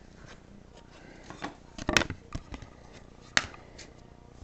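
Trading cards being handled: light rustling with a few sharp taps and clicks, the loudest about two seconds in.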